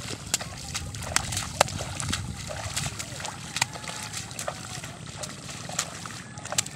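Irregular splashes and sloshing in a flooded rice paddy: feet wading through shallow water and mud, and bundles of rice seedlings slapping down onto the water as they are tossed out, about one or two sharp splashes a second.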